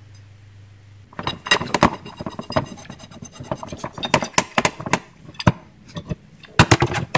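Red cast-iron pipe clamp fittings clinking and knocking against a 1/2-inch galvanized steel pipe as they are slid onto it and fitted, a rapid irregular run of metallic clicks and clinks, some briefly ringing, starting about a second in.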